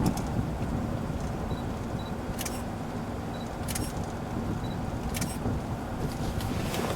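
A steady low rumble, with three brief high clicks about a second and a half apart in the middle.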